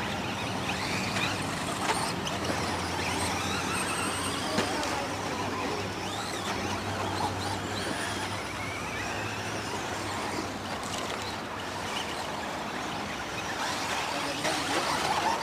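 Radio-controlled off-road racing cars running around a dirt track, their motors whining in overlapping glides that rise and fall in pitch as the cars speed up and slow down.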